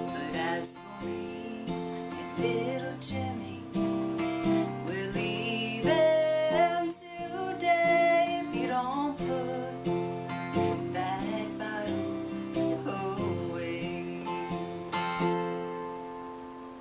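Acoustic guitar strummed under a woman's singing voice in a country-folk song. About fifteen seconds in a last chord is strummed and left to ring, fading away.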